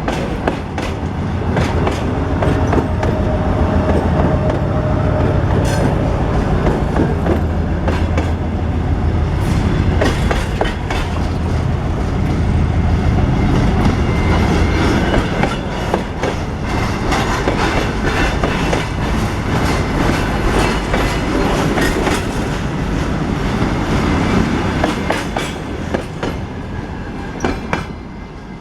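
Train rolling past, its wheels clicking rapidly and irregularly over the rail joints over a steady low rumble, fading somewhat near the end.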